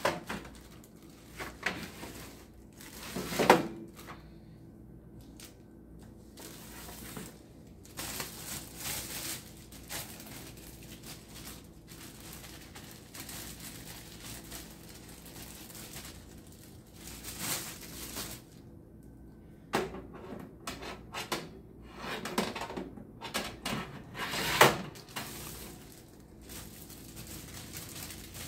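Plastic-wrapped wire racks being slid out of a Ninja Foodi air fryer oven and handled: plastic wrap rustling and crinkling, with a few sharp metal knocks, the loudest about three seconds in and again a few seconds before the end.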